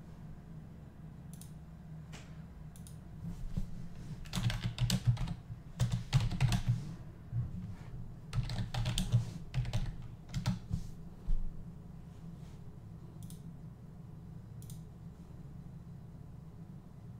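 Typing on a computer keyboard: quick runs of key clicks in several bursts from a few seconds in until near the middle, then a few single clicks, over a steady low electrical hum.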